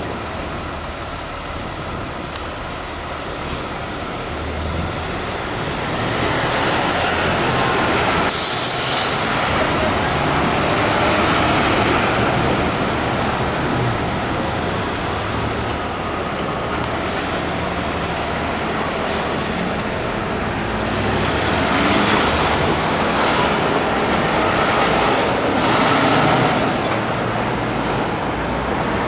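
Heavy truck engine running amid street traffic, with a short loud hiss of air brakes releasing about eight seconds in.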